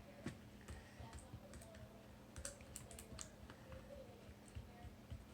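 Faint, irregular small clicks and sticky snaps of homemade slime being mixed and squished, a few a second.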